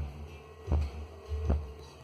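Deep bass thumps from a car sound system's subwoofers, a steady beat of about one every three quarters of a second over a faint steady tone, played while the system is being tuned.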